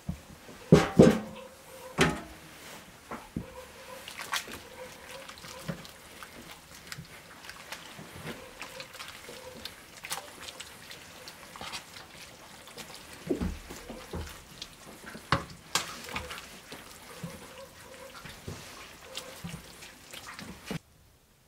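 A thick, wet mash of vegetables and grain being stirred in an enamel pot, with sloshing and squelching and scattered sharp knocks of the stirring utensils against the pot, the loudest about one and two seconds in.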